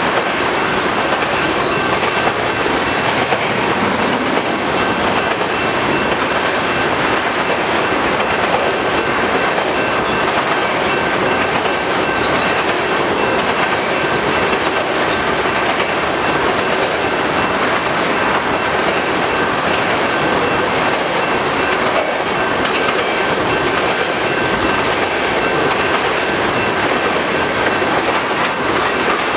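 Tank cars of a crude-oil train rolling past, a steady noise of steel wheels on rail with clickety-clack and a faint steady high whine.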